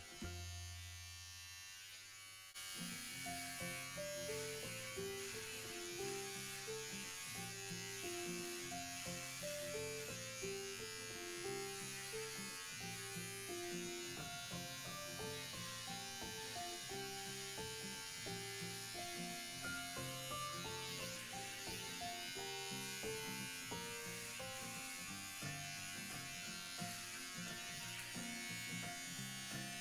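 Electric hair clippers buzzing as they shave the scalp down, with background music of a stepping melody playing over them.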